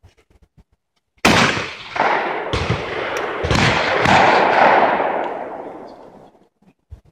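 Several shotgun shots at clay targets in quick succession. The first loud one comes just over a second in, and each shot has a long echoing tail that dies away near the end.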